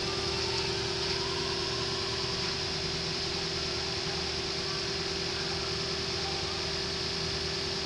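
Lexus LS460's 4.6-litre V8 idling steadily under the open hood, with a constant high hum over the engine note.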